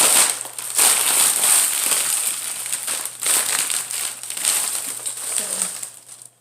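Paper takeout bag and food wrappers rustling and crinkling close to the microphone as the food is taken out, dying away near the end.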